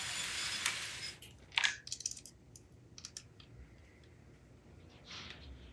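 Small machined aluminium parts of a posable model robot arm clicking and clinking as they are handled and fitted together, with a rustle of about a second at the start and a shorter one near the end.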